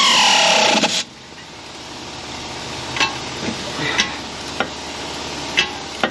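Pneumatic wrench on an air hose whining at a steady high pitch, the pitch dropping as it slows on a nut, then cutting off about a second in. A few light metallic clicks and knocks of hand tools follow.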